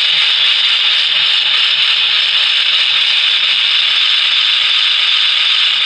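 Steady, loud hiss from the speaker of a powered-up Lionel Railsounds II sound board, with no chuffs.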